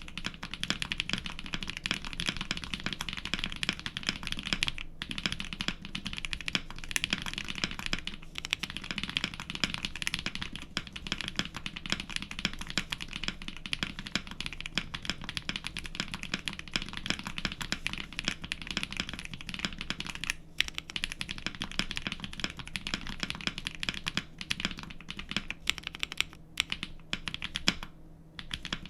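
Fast, continuous typing on a Space65 R3 mechanical keyboard fitted with factory-lubed KFA Laughing Gas linear switches and GMK keycaps: a dense run of keystroke clacks with a few brief pauses, a sound profile the typist calls chalky.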